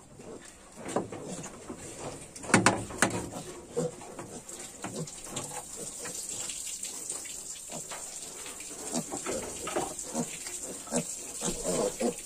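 Yorkshire piglets grunting in short, scattered calls as they root about, with a couple of sharp knocks about two and a half to three seconds in, over a steady high hiss.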